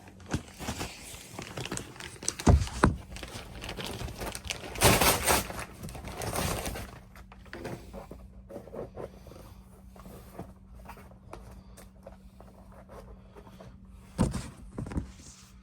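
Handling noises: scattered knocks and clicks with some rustling, and a louder rushing noise about five seconds in. A faint steady hum comes in about halfway through.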